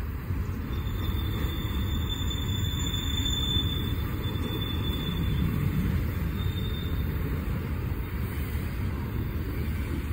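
Double-stack intermodal freight train rolling past: a steady low rumble of container cars on the rails, with a faint high squeal from about a second in for a few seconds and again briefly later.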